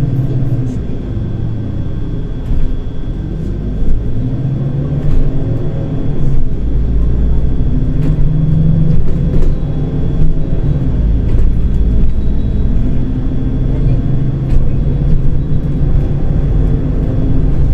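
Volgabus-5270.G2 natural-gas (LNG) city bus under way, heard on board: a loud low engine and road rumble whose engine note rises and falls as the bus speeds up and slows, with scattered rattles and knocks and a faint steady high whine.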